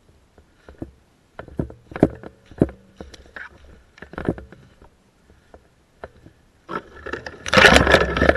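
Footsteps crunching through dry fallen leaves: a few separate steps, then a louder, denser stretch of crunching and rustling lasting about two seconds near the end.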